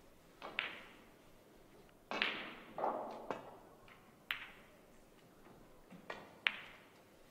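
Snooker shots: several sharp clicks of the cue tip striking the cue ball and balls knocking together, with a duller thudding stretch of balls running into the cushions about two seconds in.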